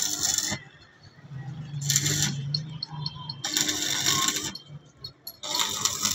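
Stick (arc) welding on a steel lattice tower: the electrode arc crackling and sizzling in four short bursts, each half a second to a second long, with quiet gaps between as each tack weld is struck and broken off.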